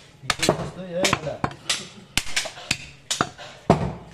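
A butcher's cleaver chopping goat meat and bone on a wooden chopping block: a quick, irregular run of sharp chops, several with a dull thud of the block under them.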